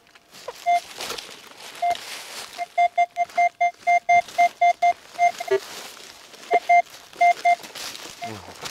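Metal detector signalling a target with short beeps, all at one fairly high pitch. They come in irregular runs, about four or five a second at the busiest, with a pause in the middle. The signal marks buried metal under the search coil.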